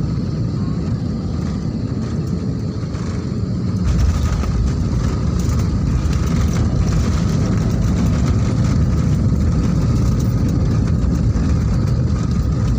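Jet airliner engine and rolling noise heard from inside the cabin as the plane moves along the runway, a steady low rumble that grows louder about four seconds in.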